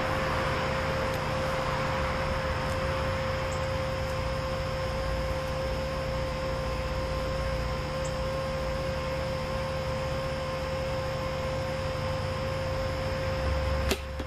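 Steady hum with a thin high whine and hiss throughout. About 14 seconds in comes a single sharp snap as the bow is shot.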